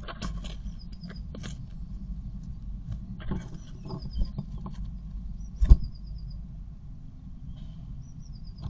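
Blue tit shuffling and scratching in the moss nest inside a wooden nest box: quick clicks and scrapes of claws against the wood, with one louder knock about two-thirds of the way through, over a steady low rumble. A short high trill of a few quick notes comes four times.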